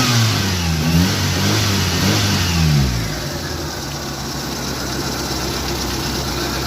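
Mitsubishi Lancer's 4G15 1.5-litre four-cylinder engine running after being started, blipped up and down several times, then settling to a steady idle about three seconds in.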